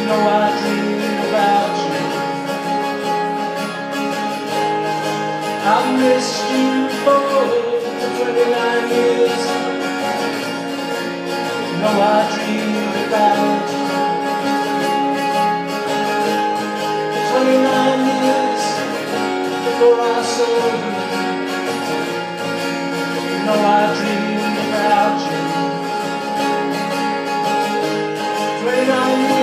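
Two steel-string acoustic guitars played together in a live duo, with a man singing over them.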